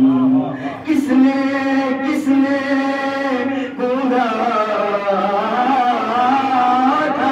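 A man chants a Muharram recitation into a microphone in long, wavering held notes, with no words broken into speech.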